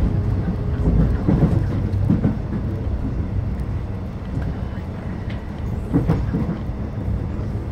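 Moving train heard from inside the carriage: a steady low rumble of wheels on the rails, with a few short knocks, the loudest about six seconds in.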